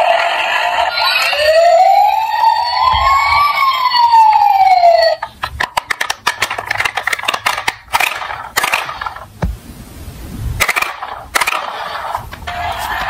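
A siren sound wails up and down once, then cuts off suddenly about five seconds in. A quieter, irregular run of clicks and knocks follows: diecast toy cars clattering as they roll down a slope. The siren starts again near the end.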